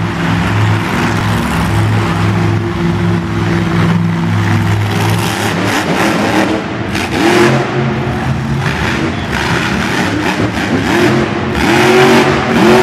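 Bigfoot monster truck's engine running steadily, then revved hard several times from about halfway through as the truck is thrown up onto its rear wheels in wheelies. Each burst of throttle rises in pitch, the loudest near the end.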